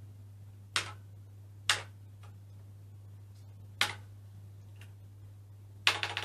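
Single key presses on the BBC Master 128's keyboard: three separate clicks spaced a second or two apart, then a quick run of presses near the end, over a steady low hum.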